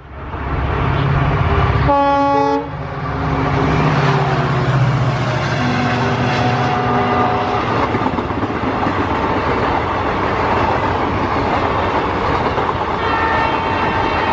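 WDM3D diesel-electric locomotive approaching with its engine running over a broad rush of wheel and track noise. Its horn gives a short blast about two seconds in, and a longer horn starts near the end.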